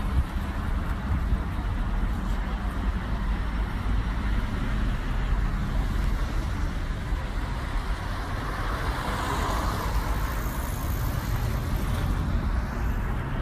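Road traffic: cars and a coach running on the road as a steady noisy rumble, swelling briefly as a vehicle goes by about nine seconds in.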